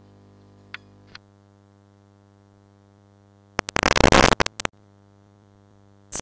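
Steady electrical hum from a cheap toy camcorder's recording, with two small clicks about a second in. About three and a half seconds in come loud, choppy bursts of static hiss, then one more short burst at the end, as the tape runs off the recording into blank, unrecorded tape.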